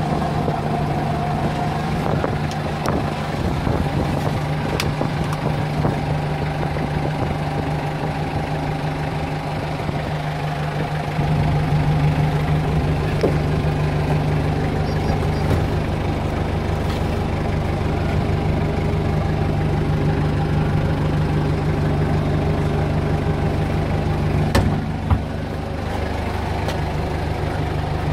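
Toyota 7FDF30 forklift's four-cylinder diesel engine idling steadily, getting slightly louder about eleven seconds in, with a couple of sharp clicks near the end.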